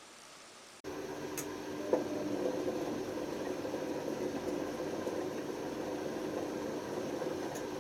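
Panasonic NA127VB6 washing machine running with worn drum bearings: a steady noisy drone with a hum, starting abruptly about a second in, with a couple of faint clicks soon after.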